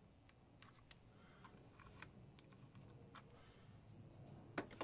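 Near silence broken by faint, irregular clicks from a brass pump oil can being worked while a lathe is oiled, with two sharper clicks near the end.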